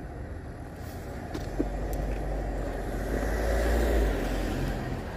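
A car passing on the road: a low engine and tyre rumble that swells about three to four seconds in, then fades.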